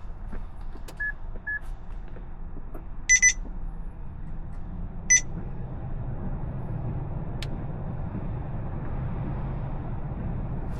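Electronic beeps from the car: two soft short beeps about a second in, a louder double beep around three seconds and a single beep around five seconds, over a steady low hum.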